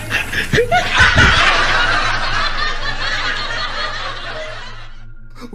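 A burst of laughter that swells about a second in and fades away near the end.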